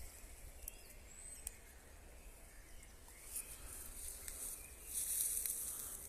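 Quiet woodland ambience: a few faint bird chirps and a short rising whistle in the first second and a half, over a soft hiss, with a brief louder rustling hiss about five seconds in.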